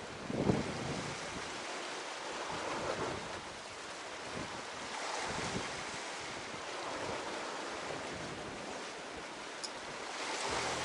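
Sea waves washing against a rocky shore, with wind buffeting the microphone; the sound swells and ebbs, with a sharp louder thump about half a second in.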